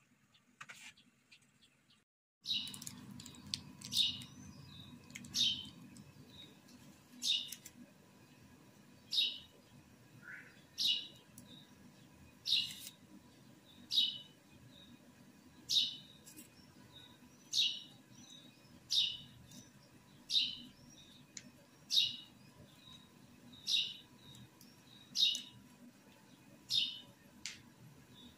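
A bird repeating one short, high chirp about every one and a half to two seconds, starting about two and a half seconds in, over a low steady hum.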